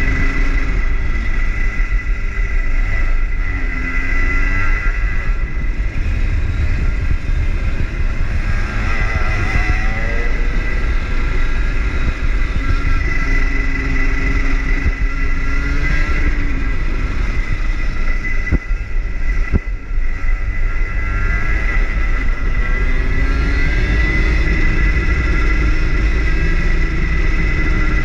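Rotax hire kart's two-stroke engine heard onboard, its pitch rising and falling again and again as the kart accelerates and backs off through the laps.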